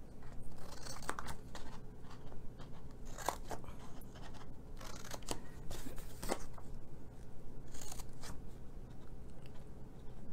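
Scissors snipping through cardstock: a series of short, separate cuts at uneven intervals, cutting in the flaps of a scored paper box template.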